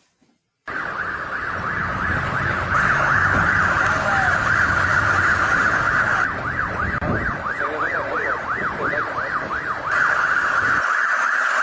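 Electronic siren sound that starts suddenly under a second in, a high tone sweeping up and down, switching about six seconds in to a fast yelp of three or four sweeps a second, then back to the slower wail near the end, over a low rumble.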